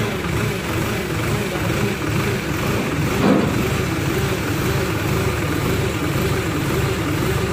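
Diesel engine of a hydra mobile crane running steadily while the crane holds its load up at the roof, with a brief louder sound about three seconds in.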